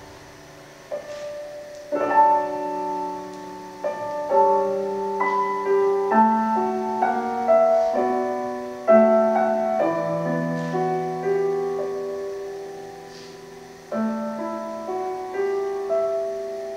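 Solo piano playing a slow, gentle piece: chords and single notes struck about once a second and left to ring and fade.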